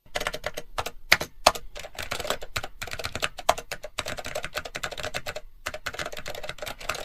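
Computer-keyboard typing sound effect: a fast, dense run of keystroke clicks with a few louder keys, starting suddenly and breaking off briefly about five and a half seconds in.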